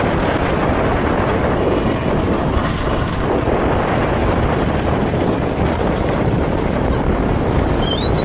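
Steady rushing wind noise buffeting the microphone while riding, with a brief faint rising chirp near the end.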